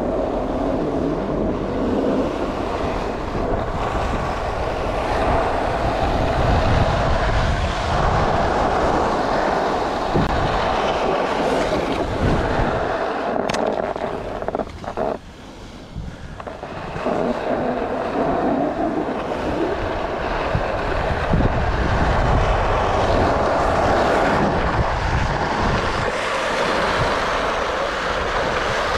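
Wind rushing over an action camera's microphone, mixed with the scrape of sliding downhill on groomed corduroy snow. It drops away briefly a little past the middle, when the rider slows to a stop, then picks up again.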